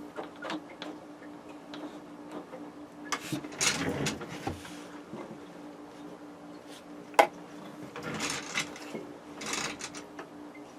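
Hands handling wires and small parts: scattered rustling and light clicks, with one sharp click about seven seconds in, over a steady low background hum.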